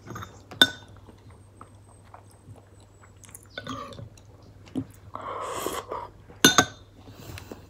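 Eating a spoonful of iced fruit dessert in coconut milk: soft chewing and a slurp from the spoon about five seconds in. A metal spoon clinks sharply against a ceramic bowl twice, about half a second in and again near the end; these clinks are the loudest sounds.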